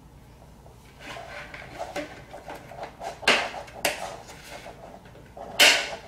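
A plastic mixing cup is handled while a small rocker switch is pressed into a hole in its side: soft rustling, then two sharp plastic clacks, about three seconds in and near the end, as the switch is pushed home.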